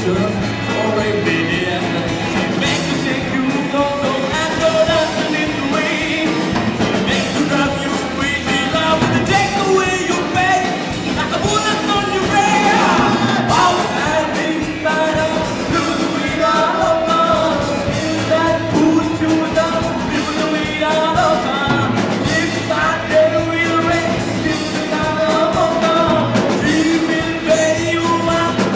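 Live rock band playing: drum kit and electric guitars under a singer's vocals.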